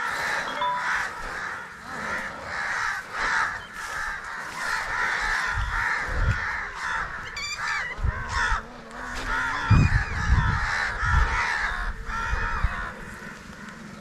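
A flock of crows cawing over and over, many calls overlapping. A few low thumps come through about halfway in.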